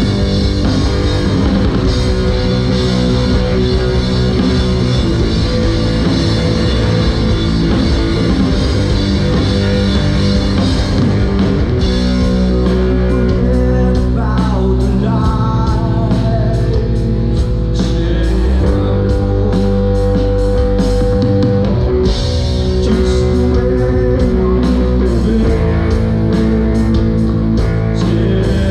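Live rock band playing at full volume: electric guitar over a drum kit, with a bending guitar melody line about halfway through.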